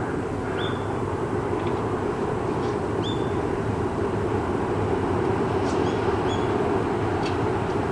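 A steady low rumble with no cat calls, with a few short, faint high chirps over it.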